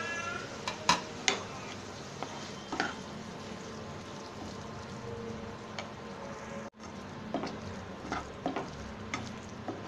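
Potato, spinach and tomato pieces sizzling in hot oil in a pan while a spatula stirs them, knocking and scraping against the pan several times.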